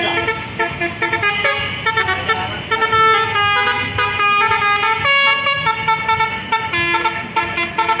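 Tour bus's basuri musical horn playing a quick tune, its notes stepping from pitch to pitch every fraction of a second.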